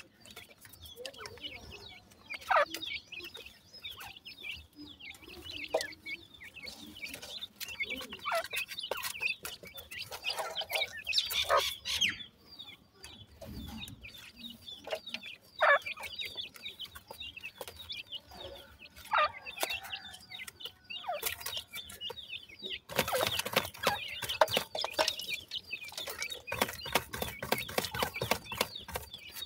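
Francolin chicks giving short falling clucks and peeps while they feed. Near the end comes a dense run of rapid clicks and scratches as they peck and scratch in the dry soil.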